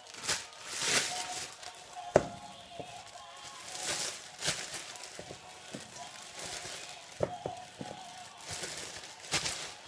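Clear plastic bag and disposable plastic arm sleeves rustling and crinkling in bursts as chunks of stewing meat are handled into the bag, with a few sharp knocks, the loudest about two seconds in.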